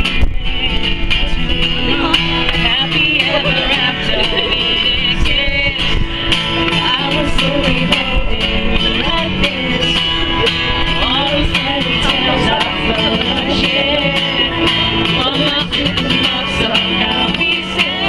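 Live pop song played by a band with acoustic guitar, with some wavering singing over it, heard through a phone-type recording overloaded by wind buffeting the microphone.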